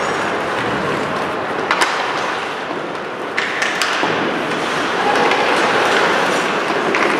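Ice hockey play on a rink: skates scraping the ice under a steady wash of arena noise, with sharp clacks of sticks and puck, one about two seconds in and two more about halfway through.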